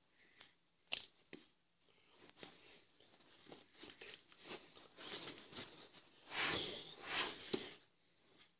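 Leather jacket rustling and creaking with quick hand and arm movements. There is one sharp click about a second in, and louder bursts of rustling near the end.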